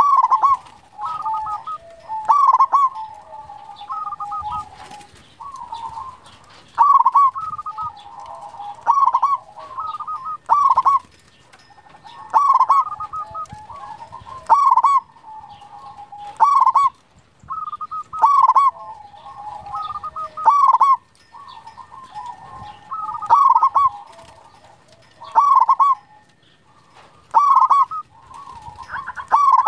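Zebra dove (perkutut) cooing in repeated rolling phrases, with a loud phrase every one to two seconds and quieter trilling coos between.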